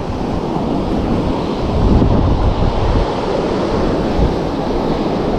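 Rough surf breaking and washing up the beach, with strong wind buffeting the microphone in low rumbling gusts, heaviest about two seconds in.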